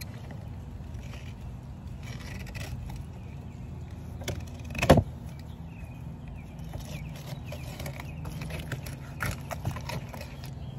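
Knife and hand sounds of a mahi being filleted: scattered light knocks and scrapes, with one sharper knock about five seconds in, over a steady low mechanical hum.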